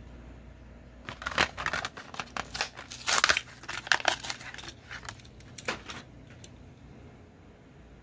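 Hot Wheels blister pack being torn open by hand, the plastic blister crinkling and the cardboard backing card tearing as they are pulled apart. The irregular crackles start about a second in, are loudest around the middle, and die away about six seconds in.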